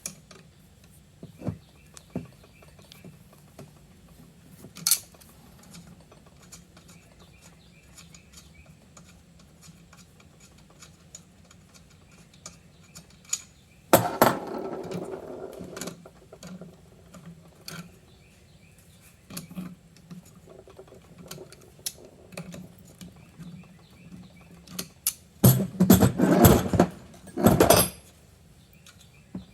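Channel-lock pliers and small metal bicycle parts clicking and clinking as parts are loosened and taken off: scattered light clicks, a louder clatter about fourteen seconds in, and a run of loud knocks near the end.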